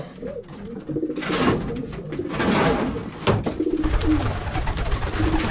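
Homing pigeons cooing in a small loft, low, wavering calls repeating throughout, with a few brief bursts of wing flapping as birds move between perches.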